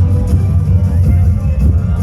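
Live band music played loud over a concert PA, heavy with booming bass.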